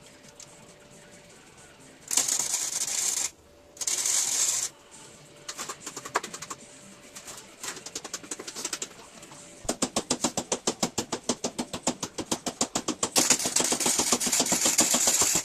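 Flux-core arc welding from a small 90 amp welder: two short bursts of crackling arc about a second each, then a stuttering arc popping about ten times a second, and a steady crackle over the last few seconds.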